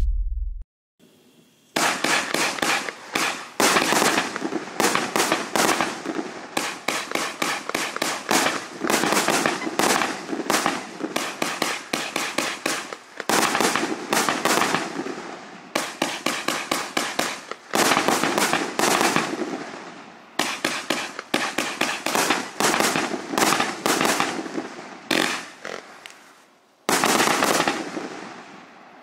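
Raccoon Fireworks 42-shot, 1.2-inch 1.4G pro firework cake firing. It begins about two seconds in with a rapid, near-continuous string of sharp shot reports and bursts that goes on for about twenty-five seconds. A short pause near the end is followed by a final volley that fades away.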